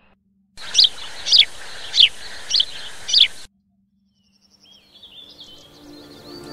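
A bird calling five times at an even pace, each call a sharp note sliding down in pitch, over a steady hiss; the sound cuts in and out abruptly. Near the end, faint chirps of birds fade in.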